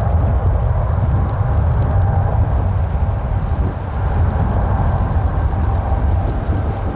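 Boeing 747-8's four turbofan engines at takeoff power: a loud, steady, low jet rumble from the departing airliner, easing slightly near the end.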